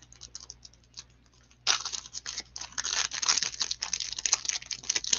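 A foil trading-card pack being opened by gloved hands: a few light ticks, then from nearly two seconds in a dense run of wrapper crinkling and tearing.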